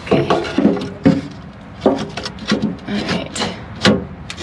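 Plywood board knocking and scraping against the compartment as it is pushed and worked into a tight fit: a series of irregular wooden knocks with rubbing in between.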